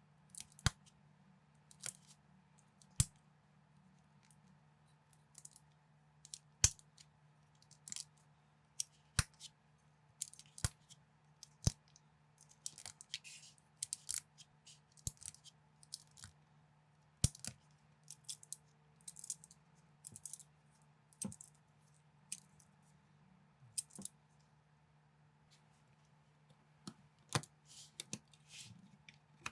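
Plastic LEGO bricks clicking and clattering as they are handled and snapped together, in irregular sharp clicks, some in quick clusters, over a steady low hum.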